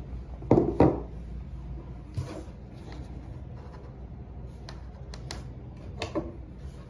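Two knocks in quick succession about half a second in, followed by lighter clicks and rubbing: a flexible silicone LED neon strip being handled and set against a wooden desktop.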